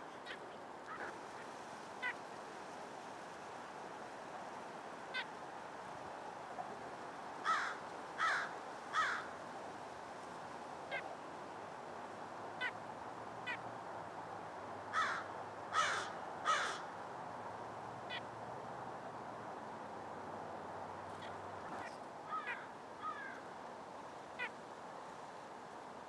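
White-breasted nuthatch giving short nasal 'yank' calls, loudest in two runs of three about a third of the way in and again past the middle, with single high call notes scattered between, over a steady low background noise.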